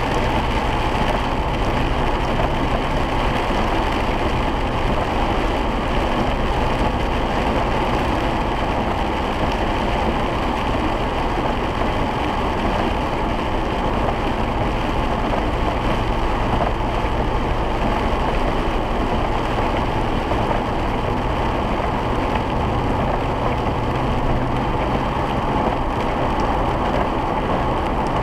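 Steady road noise heard from inside the cabin of a 2008 Ford Crown Victoria Police Interceptor driving on a rain-soaked road: tyre noise on wet pavement with the engine running underneath, unchanging throughout.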